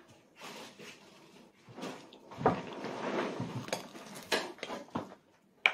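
Dishes and utensils clinking on a dining table amid rustling, with about five sharp clicks; the last, just before the end, is the loudest.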